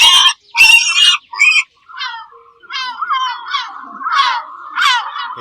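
Animal calls: a few loud, harsh cries in the first second and a half, then a run of short calls that fall in pitch, about two a second, over a steady background drone.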